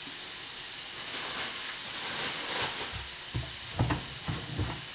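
Sliced bell peppers frying in oil in a pan, with a steady sizzle. In the second half come a few light knocks and a rustle.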